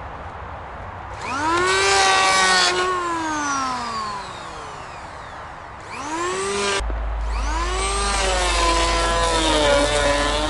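Electric hand planer spinning up about a second in, running briefly and winding down, then starting again about six seconds in and running with its pitch sagging and wavering as it cuts. It is shaving down high spots on wooden floor joists to level them.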